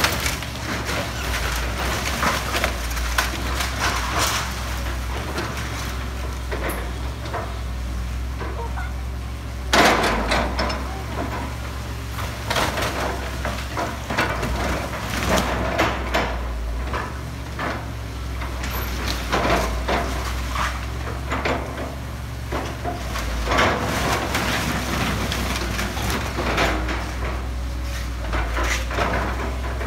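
Excavator's diesel engine running steadily while its demolition grapple rips into the building's front, with repeated cracking, creaking and crashing as framing and debris break and fall. The loudest crash comes about ten seconds in.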